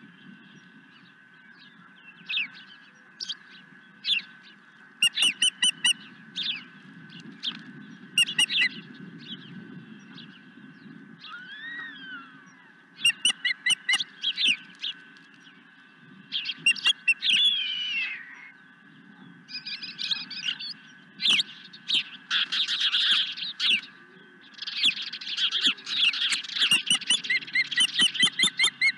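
Ospreys calling: bursts of short, sharp, whistled chirps, some in quick runs, growing into dense, near-continuous chirping toward the end.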